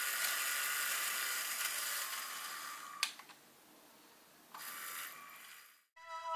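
High-pitched whir of a small electric motor, fading over about three seconds and ending in a sharp click. A second, shorter whir follows about a second and a half later and fades out.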